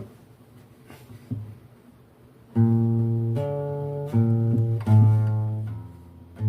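Acoustic guitar music: after a near-quiet gap of about two and a half seconds, three chords are struck in turn and left to ring and fade, with a fourth starting right at the end.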